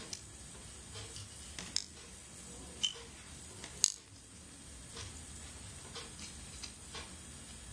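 Faint, irregular clicks and ticks of multimeter probe tips tapping the solder pads of a Raspberry Pi 3 board and the metal terminals of a 3.5 mm jack, about one a second, the sharpest just before four seconds in.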